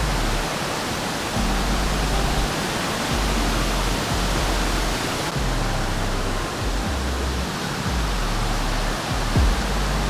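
Steady rush of a waterfall on a mountain river, with background music over it whose low bass notes change every second or two.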